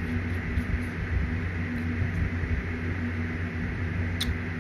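Steady low hum in the room, with one brief scrape near the end as a plastic spoon digs into a can of dry corn starch.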